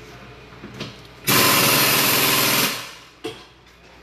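Pneumatic impact wrench firing in one loud rapid-hammering burst of about a second and a half, then winding down. A single short knock follows.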